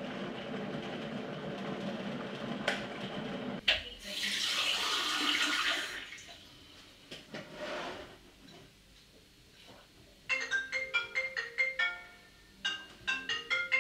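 Electric kettle rumbling on the boil, cutting off with a click near four seconds in; then a tap runs into a glass for about two seconds. From about ten seconds in, a quick marimba-like tune of bright notes plays, its phrase repeating.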